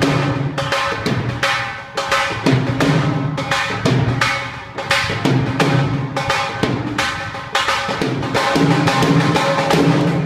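Dhol drumming in a fast, driving bhangra rhythm, with a steady held note underneath.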